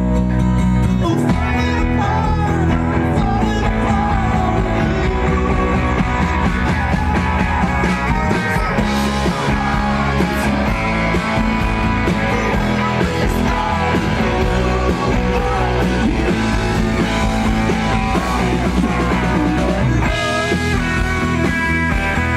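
Rock music with guitar and singing, a full band playing steadily after a held chord in about the first second.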